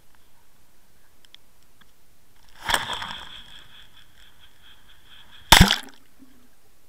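Two sharp knocks on the underwater camera's housing as the camera is handled. The first rings on briefly with a high tone; the second, a few seconds later, is louder and heavier.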